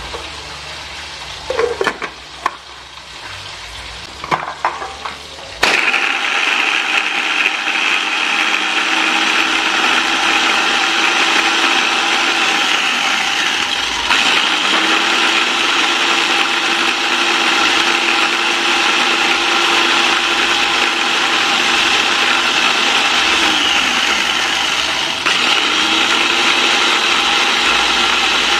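Mitochiba CH100 electric food chopper: a few clicks and knocks as it is put together, then about six seconds in its motor starts and runs steadily with a high whine, chopping chillies, shallots, garlic and tomatoes into a spice paste. The sound dips briefly twice while it runs.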